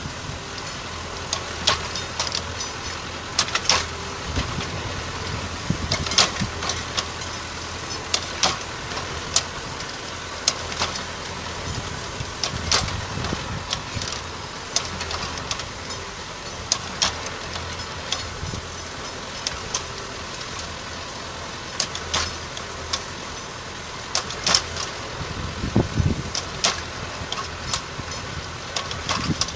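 Tractor engine running steadily while it drives a PTO-powered Calderoni FPS55 in-row rotary cultivator tilling dry orchard soil. Irregular sharp ticks and knocks, one or two a second, sound over the steady running.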